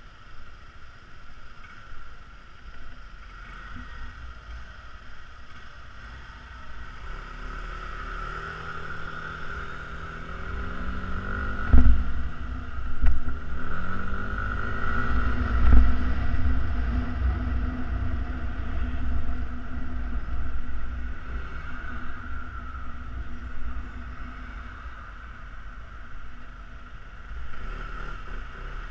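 Yamaha Xenter 150cc scooter's single-cylinder engine running while riding, its pitch rising and falling with speed about a third of the way in, under a steady rumble of wind on the helmet-mounted microphone, with a couple of heavier wind thumps midway.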